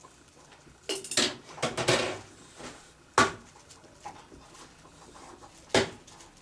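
A short rattling clatter of hard objects about a second in, then two single sharp clinks or knocks, one near the middle and one near the end.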